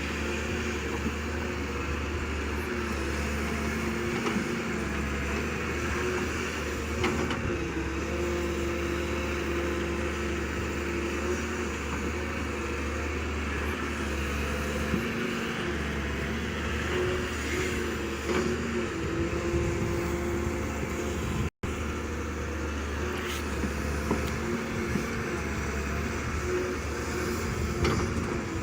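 Diesel engine of an excavator running steadily at working revs, its pitch wavering slightly as it works, with faint clicks over it. The sound cuts out abruptly for an instant about three-quarters of the way through.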